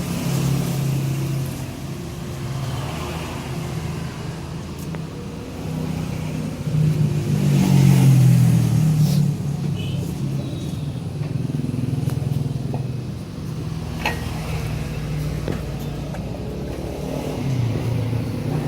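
A motor running with a steady low hum that swells for a couple of seconds near the middle, with a single sharp knock about two-thirds of the way through.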